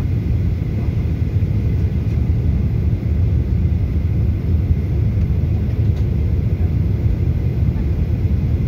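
Steady low rumble of a jet airliner in flight, heard inside the passenger cabin.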